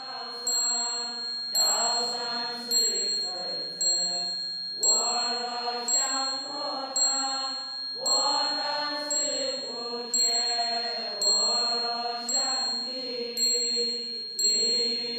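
A children's group chanting a Buddhist sutra verse in Chinese in unison, long melodic held notes, with bright ringing metallic strikes keeping time about twice a second.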